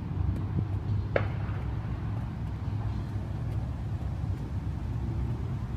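Steady low rumble of distant car engines at a drift circuit, with a short sharp click about a second in.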